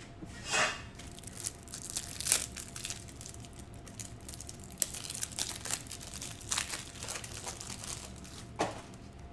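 Plastic wrapping on trading card packs crinkling and tearing as the packs are handled and opened, in irregular sharp crackles.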